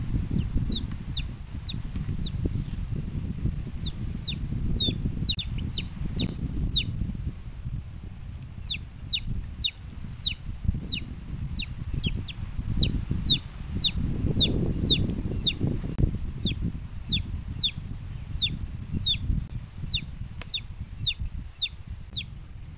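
A chick peeping over and over in quick, falling chirps, two or three a second, with a short pause about seven seconds in. A low rumble runs underneath.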